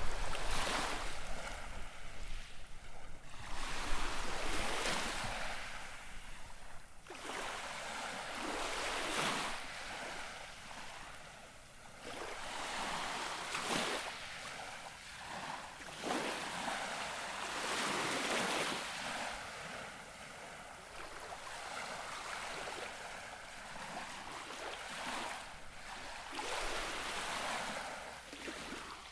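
Gentle waves lapping on the shore, each small wave washing in and fading, in irregular swells every few seconds.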